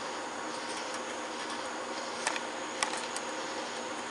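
Steady background buzzing hum made of several even tones, with a few small clicks about two and three seconds in.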